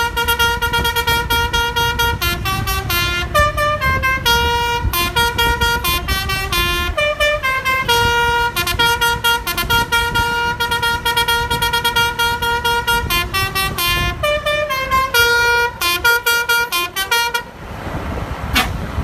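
Basuri musical horn on an Aceh intercity bus playing a tune of quickly changing notes over the low rumble of the bus engine. The tune stops about a second and a half before the end, leaving engine and road noise.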